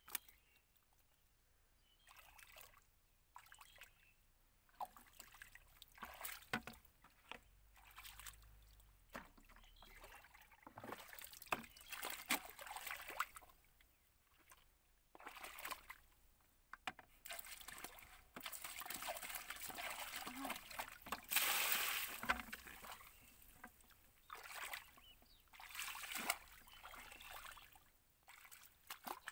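Shallow muddy water sloshing, trickling and splashing in short irregular bursts, as hands work through it to catch catfish, loudest about two-thirds of the way in.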